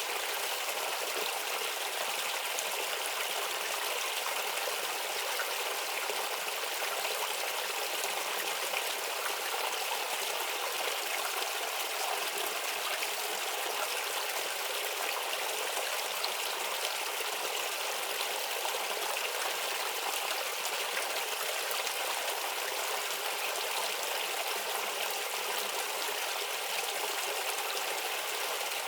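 A shallow stream babbling steadily, water trickling and splashing over stones in an even, unbroken rush with little low rumble.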